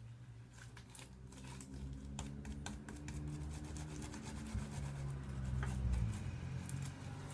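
Homemade slime being scraped out of its container and worked by hand: sticky rubbing and scraping with many small clicks and crackles. A low hum runs underneath, swelling midway and dropping away about six seconds in.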